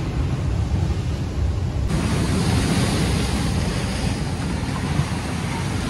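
Sea surf breaking and washing over rocks, with wind rumbling on the microphone. The surf grows louder and hissier about two seconds in.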